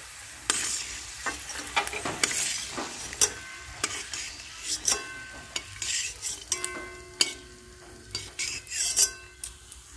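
Metal spatula scraping and tapping against a metal kadai, lifting fried peanuts out of hot mustard oil, which sizzles faintly underneath. Some of the strokes leave the pan ringing briefly.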